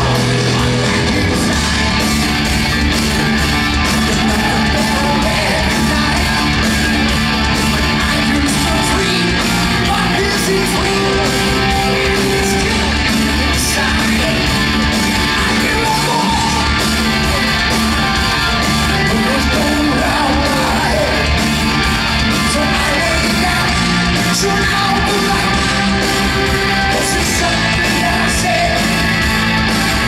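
Live hard rock band playing loud and steady: distorted electric guitar and drum kit, with a male lead singer singing over them.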